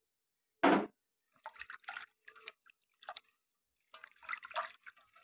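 Hand swishing and rubbing thick poha flakes in water in a steel bowl to wash them: irregular splashes and sloshes, with one louder splash under a second in.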